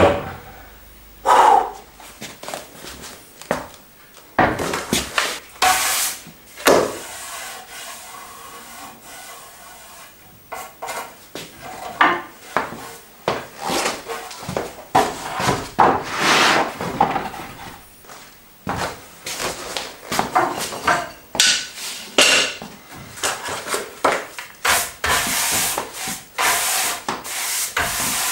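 Hand brush sweeping across rough-sawn oak boards in repeated, irregular strokes, with a few sharp knocks of wood on wood as the boards are handled.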